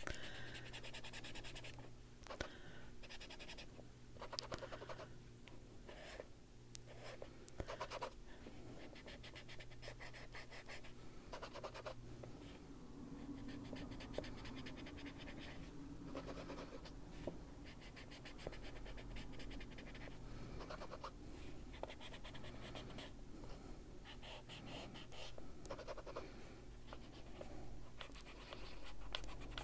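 Faint, scratchy rubbing of a small foam-tipped mini detail blending tool loaded with Distress Ink against coloring-book paper, in short irregular strokes, as the ink is blended onto the page.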